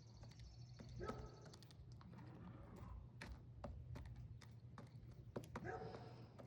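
Silkie bantam hens pecking at their feed: a scatter of faint, irregular sharp ticks.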